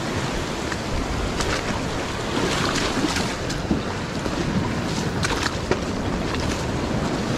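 Sea surf breaking and washing over rocks, with wind on the microphone. A few short clicks and scrapes sound about 1.5, 3 and 5 seconds in.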